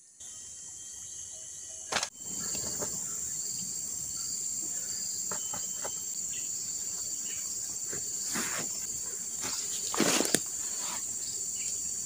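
Steady high-pitched buzz of jungle insects, with one sharp snap about two seconds in as a bamboo bow is loosed, and a couple of brief rustles later on.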